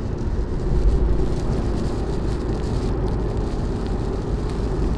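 Steady in-cabin road and engine rumble of a 2018 Ford Mustang GT cruising at highway speed.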